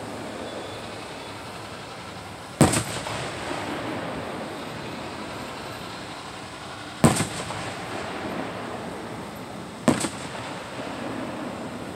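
Aerial firework shells bursting at a distance: three sharp bangs, about two and a half seconds in, again some four seconds later, and once more three seconds after that. Each bang is followed by a short echo, over steady background noise.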